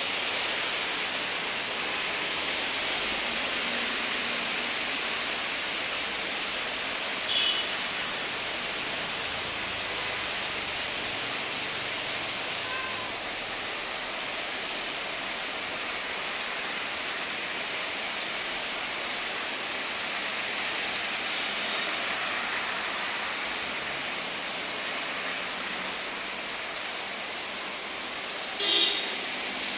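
Rain falling steadily, an even hiss, with two brief sharper sounds, one about seven seconds in and one near the end.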